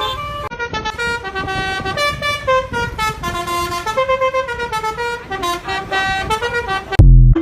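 Basuri telolet bus horn playing a quick tune, its pitched notes changing several times a second with more than one tone sounding at once. A short, very loud low blast comes near the end.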